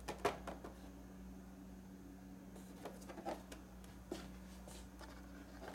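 Faint handling noises from a carded action figure, a few soft clicks and taps of cardboard and blister plastic, over a steady low hum.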